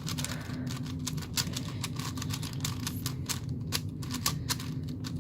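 X-Man Galaxy V2 M magnetic Megaminx being turned quickly by hand: a rapid, irregular run of soft plastic clicks and clacks as its faces turn. The sound is a lot softer than an ordinary Megaminx.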